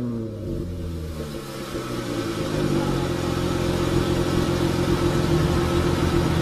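2015 Dodge Challenger SXT's 3.6-litre V6 running through a Flowmaster American Thunder exhaust, heard at the tailpipes. The pitch falls as the revs drop back near the start, then a steady exhaust drone holds and grows slightly louder from about two seconds in.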